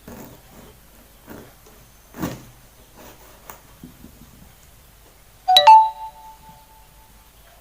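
A few dull knocks of a knife cutting limes in half on a board, then, about five and a half seconds in, a sharp ringing clink of a struck hard object that dies away over about a second and a half.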